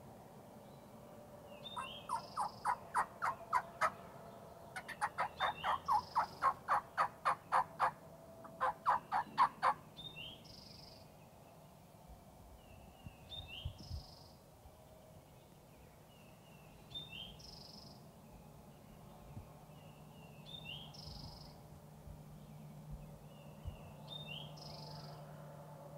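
Wild turkey yelping: three runs of sharp, evenly spaced notes at about four a second, starting about two seconds in and ending near the ten-second mark; these are the loudest sounds. A small songbird keeps up a short, high, two-part chirp every second or two.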